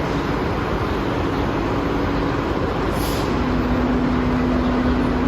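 Steady traffic rumble of idling and passing vehicles at a pickup curb, with a low engine hum that drops slightly in pitch a little past halfway, and a brief hiss about three seconds in.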